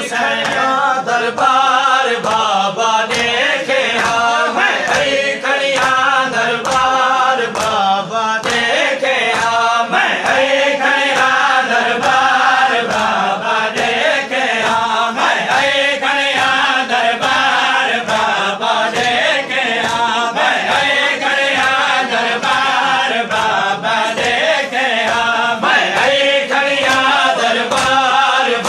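Male voices singing a noha, a Shia lament, over the mourners' rhythmic matam: open-handed chest-beating in unison, about one and a half strikes a second.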